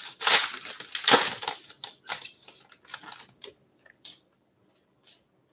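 A crimped trading-card pack wrapper being torn open and crinkled, loud crackling for about two seconds. It then thins to a few soft slides and ticks as the cards are taken out and handled.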